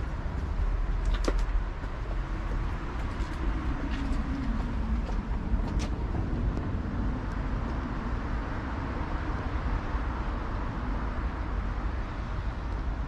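Steady city street traffic noise, with a few short sharp clicks.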